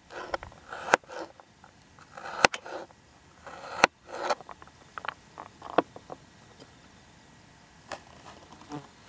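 Kitchen knife slicing a peeled carrot on a cutting board: irregular sharp taps as the blade cuts through onto the board, with short scrapes between, thinning out after about six seconds.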